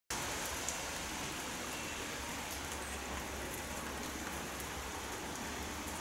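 Steady rain falling: an even hiss with a few scattered ticks of drops.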